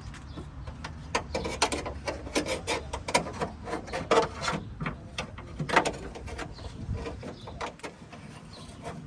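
Irregular clicking, rattling and scraping of small parts worked by hand through an opening in a car's trunk lid, as a backup camera's mounting plate and its wiring are fished through. The handling noise picks up about a second in and eases off near the end.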